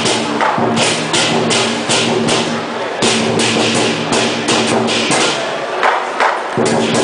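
Lion dance percussion: a Chinese drum beaten in a driving rhythm with cymbals crashing about three times a second over a ringing gong tone, which drops out for a moment near the end.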